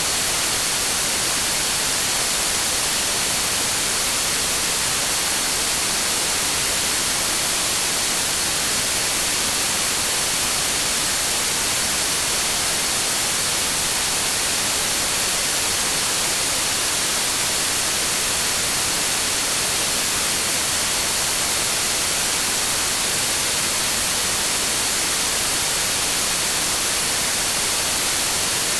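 Continuous generated green noise for sleep and tinnitus relief: a steady, even hiss that leans bright and never changes, with a faint thin high tone held throughout.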